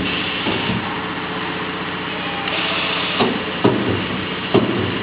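Multi-head spot welding machine welding a spiral wire fan guard: a steady machine hum, with sharp welding strokes about once a second from about three seconds in.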